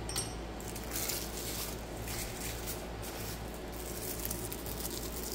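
Soft, intermittent rustling and crinkling of packaging as small model crane parts are handled and unwrapped, over a faint steady hum.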